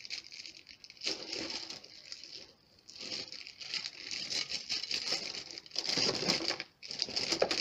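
Thin plastic bags crinkling and tearing as they are pulled open, in crackling spells that are loudest about six seconds in.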